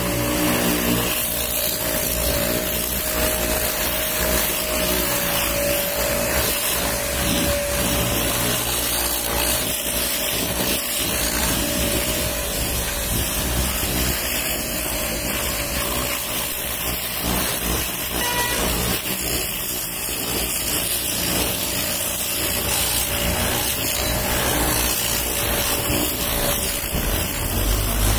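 Pressure-washer jet spraying water onto a car's front bumper and grille: a steady hissing rush, with a faint steady hum through the first few seconds.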